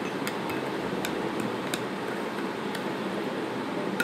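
Steady room hiss with a few faint ticks as salt is tipped from a small plate into a glass of water, then a sharper click near the end as the plate knocks against the glass rim.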